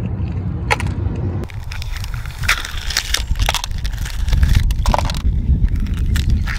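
Thick shell of a boiled ostrich egg being cracked and broken away, a series of separate sharp cracks and crunches over a steady low rumble.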